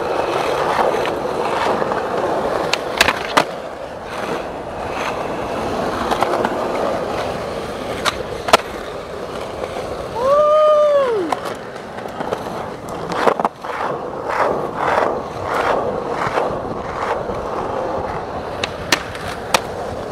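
Skateboard wheels rolling on asphalt, a steady gritty rumble broken several times by sharp clacks of the board popping and landing. About halfway a person gives a brief whoop that rises and then falls in pitch.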